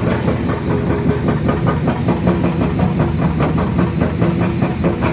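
Excavator's diesel engine running steadily, with a fast, even pulsing beat.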